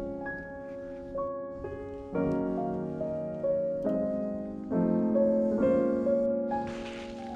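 Background piano music: a slow, gentle melody of struck notes and chords, each fading away before the next.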